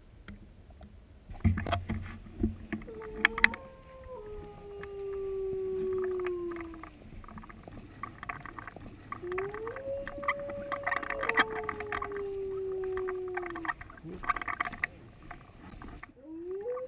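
Wolf-like howling: three long howls, each rising, holding and then sliding slowly down in pitch, with a second fainter howl above them. Scattered clicks and rustling come in between.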